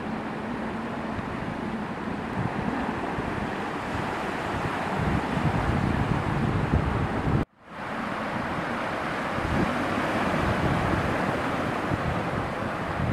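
Ocean waves breaking with wind buffeting the microphone: a steady rushing noise with gusty low rumbles. The sound cuts out completely for a split second a little past halfway.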